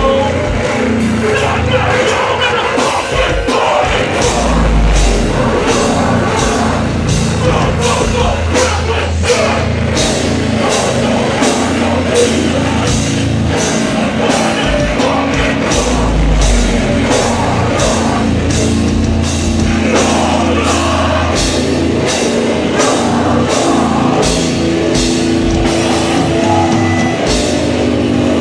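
A hardcore punk band playing live and loud: heavy distorted guitars and bass over drums keeping a steady beat. A deep low bass note swells twice, about five and about sixteen seconds in.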